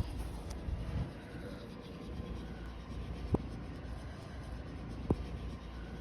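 Snowstorm wind rumbling steadily, with a scratchy hiss and two sharp ticks, one in the middle and one near the end.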